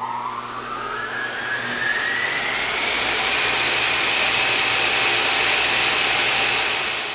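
A machine spinning up to speed: a whine rises steadily in pitch over the first few seconds, then levels off into a steady high whine over a rushing hiss. It starts to die away at the very end.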